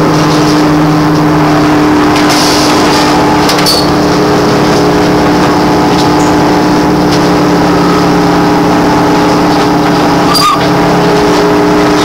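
Interior of a MAN articulated trolleybus: the electric drive and onboard equipment humming with several steady held tones over a constant bed of road and cabin noise. A single short knock comes about ten and a half seconds in.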